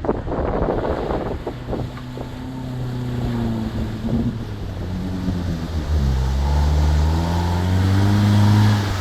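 UAZ off-roader's engine working under load through a water ford, its revs sagging and then climbing steadily over the last few seconds. A gusty, splashy rush is heard over it at first.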